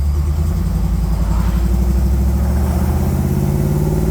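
AMC 304 V8 of a 1976 Jeep CJ7 pulling under acceleration, its engine note climbing steadily as the revs build toward an upshift of the automatic transmission.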